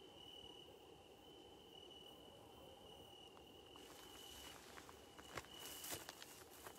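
Faint crickets trilling in a steady high tone with brief breaks. Near the end a few soft clicks and a light rustle come in.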